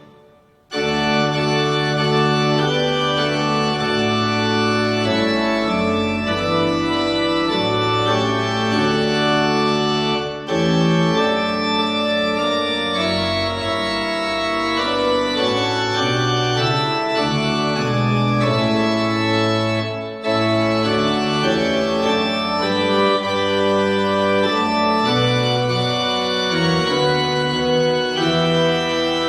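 Organ playing slow sustained chords, with brief breaks between phrases, as in a hymn or service music.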